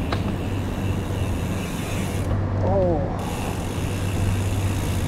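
Steady low rumble of riding a bicycle: wind on the rider's camera microphone and tyres on the pavement. A brief pitched sound rising then falling comes about two and a half seconds in.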